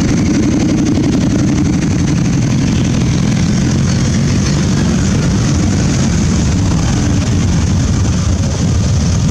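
A procession of large cruiser and touring motorcycles riding slowly past one after another, their engines running together in a steady, loud low drone.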